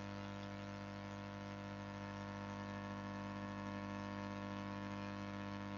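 Steady low electrical hum with several even tones and a faint hiss underneath, unchanging throughout.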